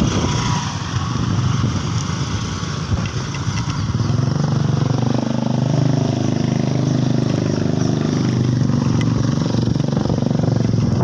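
Motorcycle engine running steadily, its low, fast-pulsing sound growing fuller from about four seconds in.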